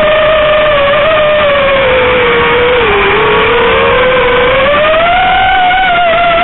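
FPV quadcopter's brushless motors and propellers whining steadily, the pitch following the throttle: it sinks to a low point about three seconds in, then rises again.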